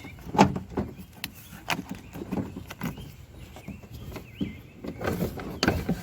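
Car door trim panel being handled after being pulled off the door: a string of irregular clicks, knocks and rattles.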